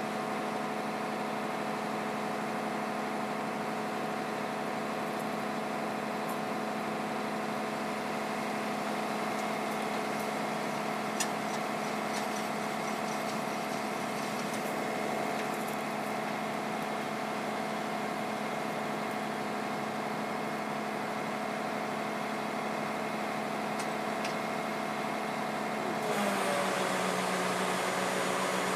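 Flatbed tow truck's engine idling steadily. Near the end there is a louder spell with the engine note dipping, as the bed's hydraulic controls are worked.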